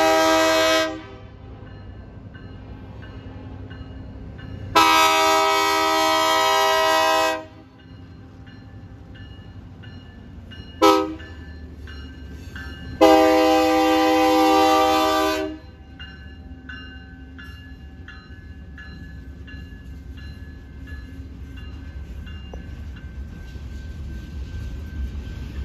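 Diesel locomotive horn sounding the grade-crossing signal: the end of one long blast, then another long, a short and a final long blast. Between and after the blasts a crossing-signal bell rings at about two strikes a second, while the locomotive and freight cars rumble closer near the end.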